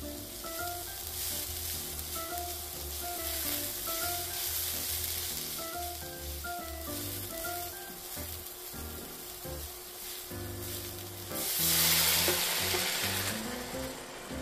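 Julienned radish sizzling in oil in a hot wok, stirred with a wooden spatula. About twelve seconds in, a louder hiss surges for a second and a half as water is poured into the hot pan.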